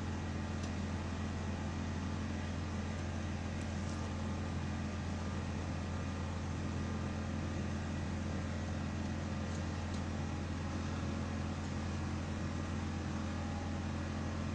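Utility line truck's engine running steadily, a low even hum.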